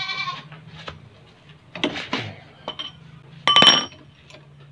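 Steel hand tools clinking against each other and a nut as a socket wrench with a pipe extension is worked loose on a scooter's rear hub. There are scattered knocks, a scraping clatter about two seconds in, and the loudest is a short ringing metal clink about three and a half seconds in.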